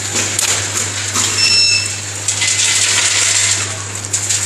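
Vertical form-fill-seal packaging machine running while it packs popcorn: a steady hum under a rattling clatter of popcorn pieces, with irregular clicks and knocks from the mechanism.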